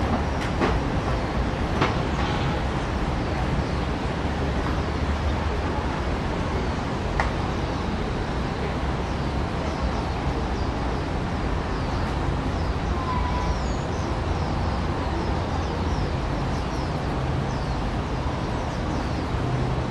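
Steady low rumble and hiss of railway-station platform ambience, with a few sharp clicks in the first couple of seconds and faint, short, high falling chirps through the middle.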